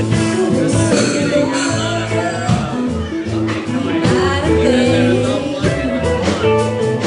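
Live band music: a sung lead vocal over bass, guitar and drums, with a steady beat.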